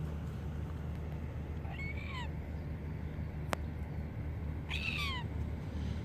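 Silver gull calling twice, about three seconds apart: two short cries, each falling in pitch, over a steady low rumble. A single sharp click falls between the two calls.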